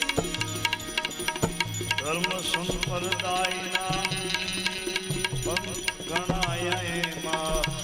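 Devotional bhajan music: a steady hand-drum beat, joined about two seconds in by a wavering melody line.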